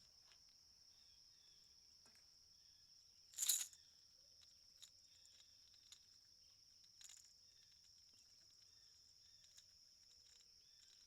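Steady high-pitched drone of an outdoor insect chorus, crickets by their sound, with a brief sharp noisy rustle about three and a half seconds in and a softer one near seven seconds.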